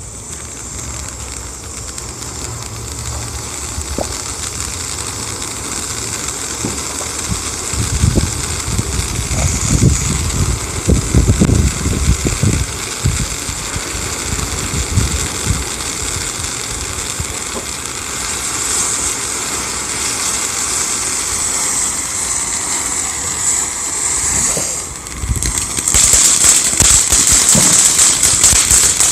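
Ground fountain firework spraying with a steady, loud hiss, with a few low thumps partway through. Near the end it turns to a louder crackling spray.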